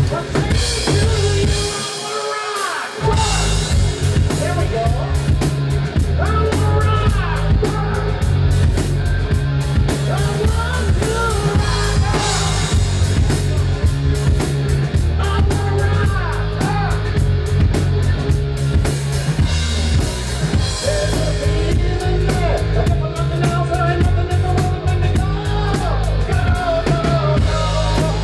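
Live rock band playing loudly: drum kit, distorted electric guitar, bass and a man singing into a microphone. The bass and kick drum drop out for about a second around two seconds in, then the full band comes back.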